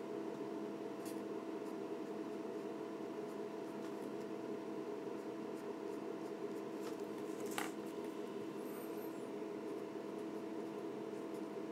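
Ink pen drawing on paper: faint short scratches of the nib as hair lines are inked, over a steady low room hum.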